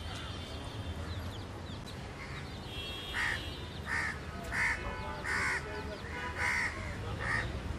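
A bird calling seven times in a row, starting about three seconds in, about one call every 0.6 seconds; each call is short and rasping.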